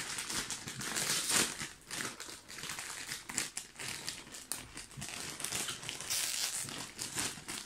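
Blue plastic snack packet crinkling and crackling steadily as it is handled and opened by hand.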